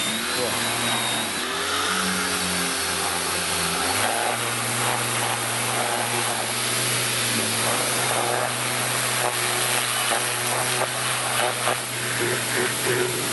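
BORT electric pressure washer running with a rotary swirl nozzle: a steady motor hum under the hiss of the water jet. The motor note changes about four seconds in, and spattering from the jet hitting a surface comes through in the second half.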